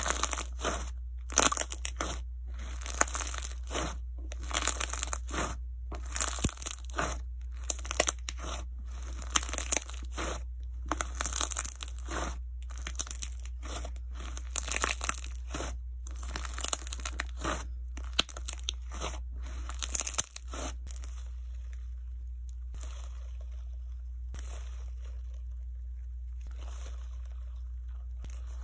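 Jelly slime with melamine-sponge 'peach flesh' pieces being squeezed and kneaded by hand: a quick run of crunchy, squishy crackles as the sponge pieces are crushed. The crackles turn fainter and sparser about two-thirds of the way through, over a steady low hum.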